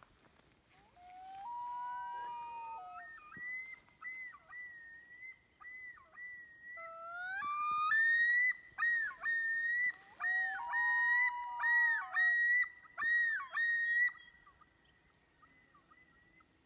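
Common loons calling across a lake: long wailing notes, then a yodel of rising glides and repeated swooping phrases, with two birds' calls overlapping at times.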